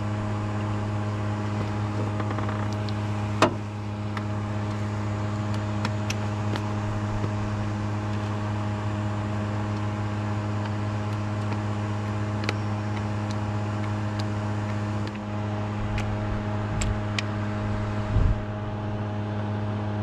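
A steady low machine hum, with a sharp click about three and a half seconds in and a short thump near the end.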